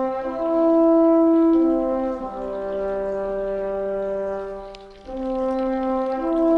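Music: a slow horn melody of long held notes, stepping up and down between a few pitches, each note held for one to three seconds.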